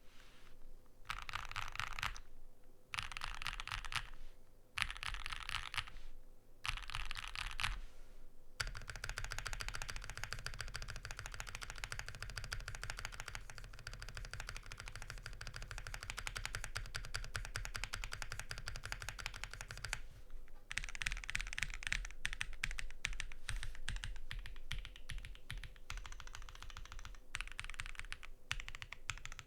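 Typing on a Neo65 custom mechanical keyboard with lubed Vertex V1 switches, a POM plate and GMK keycaps: rapid key clacks. For the first several seconds the typing comes in short runs with brief pauses, then it runs on without a break.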